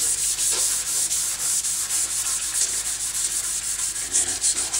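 Backhoe body panel being sanded by hand with 280-grit sandpaper: a steady rasping hiss in quick, even back-and-forth strokes.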